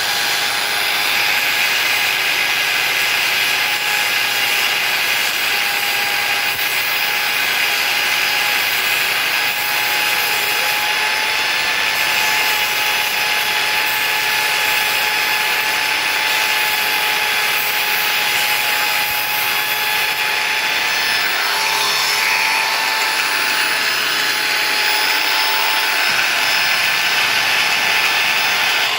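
Angle grinder running steadily, a continuous motor whine, with a wooden stick held against its spinning disc, grinding the tip to a point with a gritty rasping.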